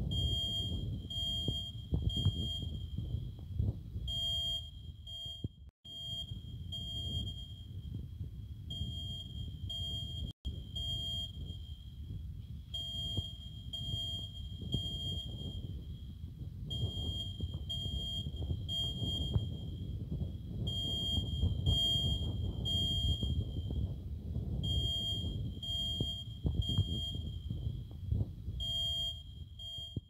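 Ceiling-mounted fire alarm beeping a high-pitched tone, short beeps repeating in groups with brief pauses between, over a low rumble.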